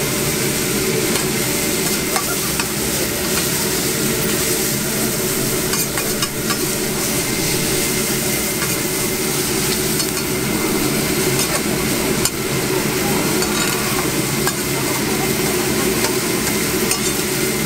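Eggs and shredded meat sizzling steadily on a hot steel teppanyaki griddle, with a few sharp scrapes and taps of a metal spatula on the plate.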